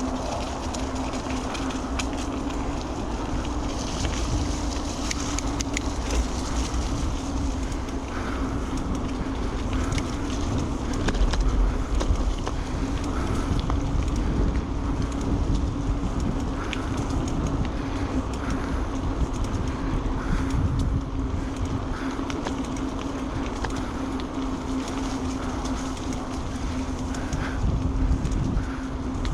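Carrera Vengeance mountain bike rolling along: a steady hum from the tyres under a dense wind rumble on the microphone, with a few faint clicks.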